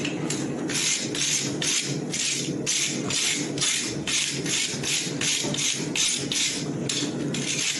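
Rapid, even scraping strokes of a hand tool across a hot horseshoe on the anvil, about three strokes a second, starting just under a second in.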